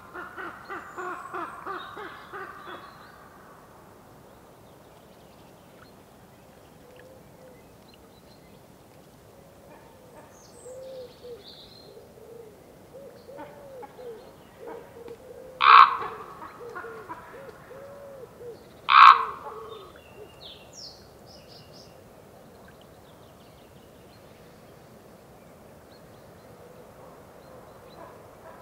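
Common raven calling: a run of calls at the start, then soft low repeated notes, and two short loud harsh calls about three seconds apart in the middle.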